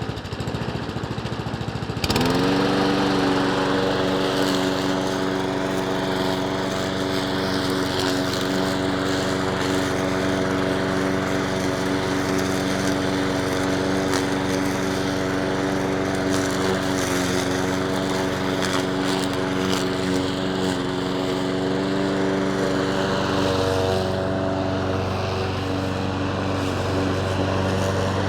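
Lamborghini petrol lawn mower engine picking up speed sharply about two seconds in, then running at a steady speed. Its tone shifts slightly near the end.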